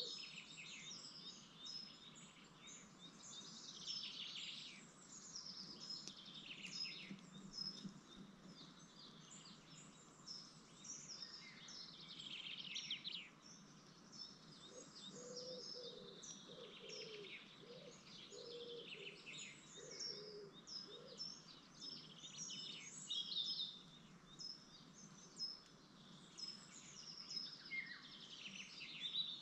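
Faint, high-pitched chirping of small birds: many short notes in quick succession, with a short run of lower notes about halfway through.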